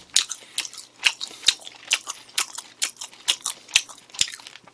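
Close-miked chewing of food: an irregular run of short, sharp, crunching clicks, a few a second.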